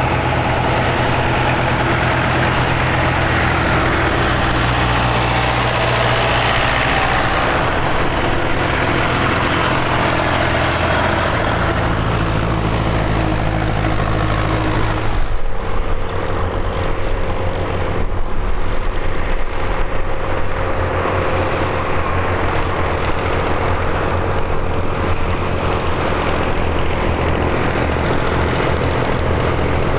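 Diesel tractor engines running steadily as a convoy of vintage tractors drives past, giving a continuous low drone. About halfway through, the sound changes suddenly: the hiss drops away and the engine drone becomes louder and more uneven.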